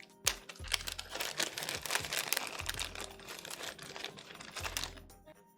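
Rapid, irregular clicking and clattering of small plastic keyboard stabilizer parts being handled and sorted, thinning out near the end.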